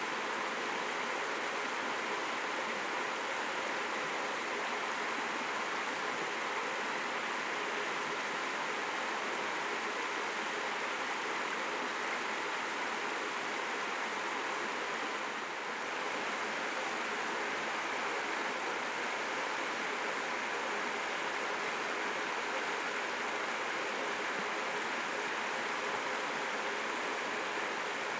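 Steady, even rushing noise with no stag roars or other animal calls.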